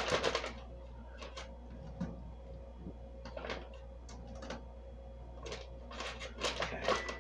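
Intermittent rustling and light clatter of blanched carrot pieces being handled and put into plastic freezer bags, in short irregular bursts that come thicker near the end.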